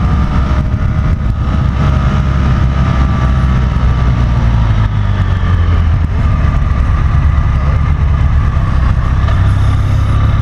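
BMW F800GT's parallel-twin engine running steadily while riding, heard from the bike with a heavy rush of wind noise; its note shifts slightly about halfway through.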